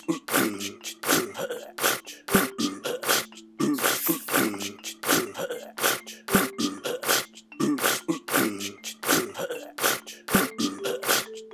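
A cappella vocal music built from human voice and throat sounds: quick, steady beatboxed mouth clicks and hits over held low vocal notes.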